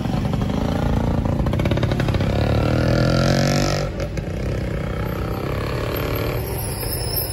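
A motor vehicle engine accelerating, its pitch rising for about three seconds before cutting off abruptly about four seconds in. Steady street traffic noise follows.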